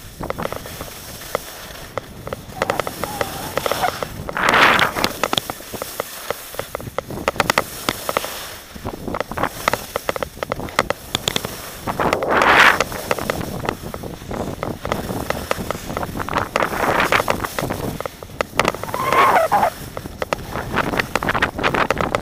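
Skis sliding over groomed snow on a downhill run: a constant crackling scrape, with several louder scraping surges as the skis carve through turns.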